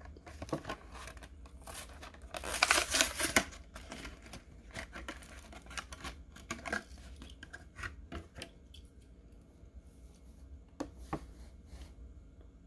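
Cardboard backing card of a toy-car blister pack being torn open, with the plastic blister crinkling. The loudest tearing comes about two to three seconds in, followed by scattered crinkles and clicks, and two sharp clicks near the end.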